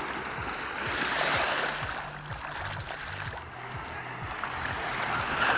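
Small sea waves washing onto the beach, with one swell about a second in and another near the end.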